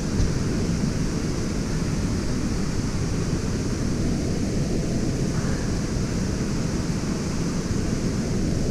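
Steady rushing of a waterfall, an even, unbroken wash of water noise.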